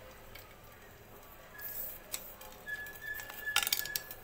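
Light clicks and taps of thin wooden cup-shaped cutouts being handled and set down on a kitchen counter, with a quick cluster of clicks near the end. A faint, steady high whistle-like tone comes and goes behind them.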